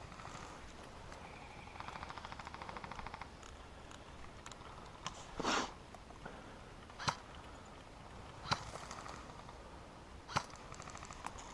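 Airsoft guns firing: a short, fast rattling burst of automatic fire, then single sharp cracks every second or two, with a fainter rattle near the end.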